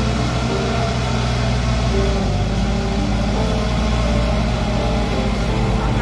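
Small Shantui crawler bulldozer's diesel engine running steadily as it works, a low, even drone.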